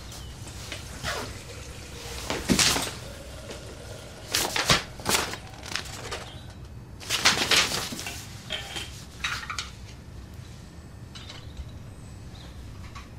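Sheets of paper being handled, rustling in several short bursts with quiet pauses between, the loudest a little after halfway.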